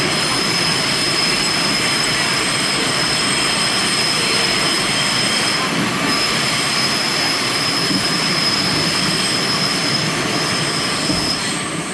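Interior of an R46 subway car running at speed, with loud steady rumble and rail noise and a high, steady wheel squeal that breaks off briefly about halfway and fades out near the end.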